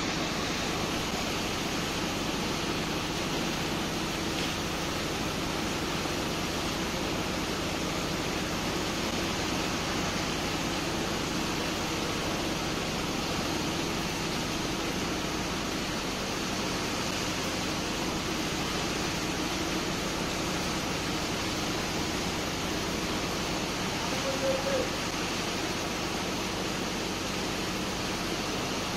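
Steady rush of water as a hose jet washes down a sand pile and a suction pipe draws off the sand-water slurry, with a low machine hum under it. A brief short tone sounds once about three-quarters of the way through.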